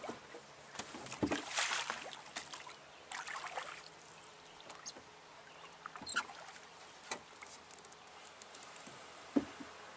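Oars rowing a small wooden Port Aransas skiff: the blades swish and splash through the water, with two louder strokes in the first few seconds, then quieter strokes broken by a few sharp knocks of the oars working in their oarlocks.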